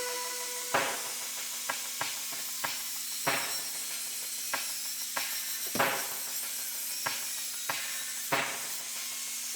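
Hammer striking steel: about a dozen sharp metallic blows at uneven intervals of roughly half a second to a second, over a steady hiss.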